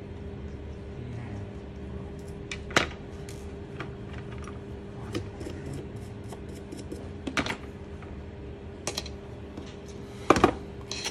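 Scattered light clicks and taps of small tools and parts being handled on a repair bench, over a steady low electrical hum. The loudest clicks come near the end.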